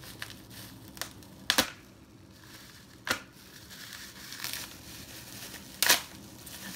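Crinkly plastic gift wrapping being crumpled and torn open by hand and with a pocket knife, rustling throughout with a few sharp snaps, the loudest about six seconds in.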